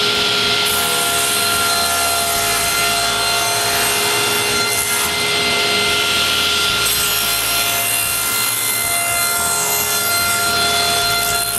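Table saw running and crosscutting a wooden frame to length: a steady blade whine under the noise of the wood being cut.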